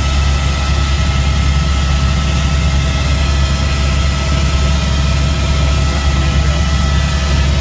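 Helicopter turbine and rotor noise heard inside the cabin in flight: a loud, steady low drone with a constant whine above it.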